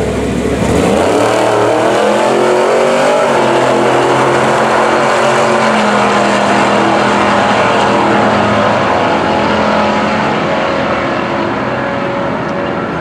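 A Nissan GT-R with its twin-turbo V6 and a classic Chevy C10 pickup launching hard off the drag-strip start line and running flat out down the quarter mile. The engines climb in pitch through the gears over the first few seconds, then hold a steady high drone that fades a little as the cars pull away down the track.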